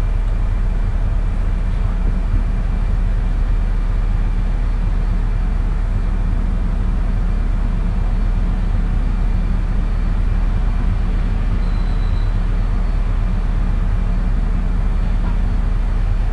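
Steady background noise of the recording microphone: a strong low hum under an even hiss, with no distinct events.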